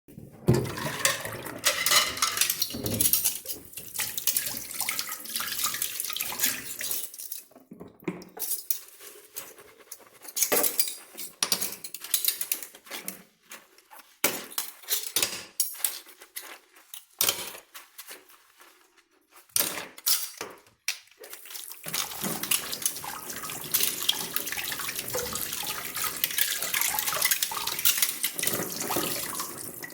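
Dishes being washed at a kitchen sink: the tap runs, stops while dishes and cutlery clink and knock, then runs again for the last several seconds.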